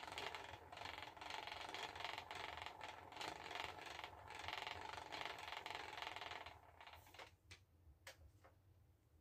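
Wooden flyer spinning wheel treadled at fast speed while wool is spun, its parts chattering steadily. The chatter dies down about six and a half seconds in, leaving a few faint clicks.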